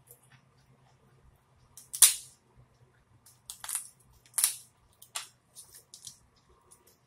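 Boiled lobster tail shell cracking as it is broken apart by hand: four sharp cracks with smaller clicks and crackles between, the loudest about two seconds in.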